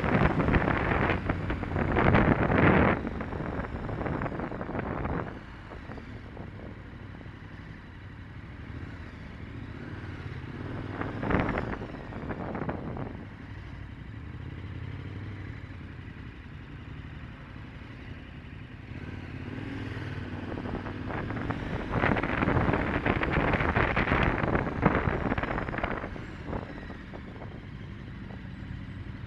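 Motorcycle engine running at low speed in slow traffic. Several louder stretches of rushing wind noise on the microphone come and go: near the start, about eleven seconds in, and for a few seconds past the middle.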